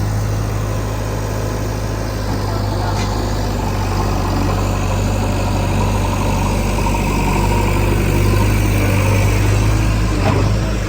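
Heavy diesel machinery engine running steadily with a low drone, with a brief knock about ten seconds in.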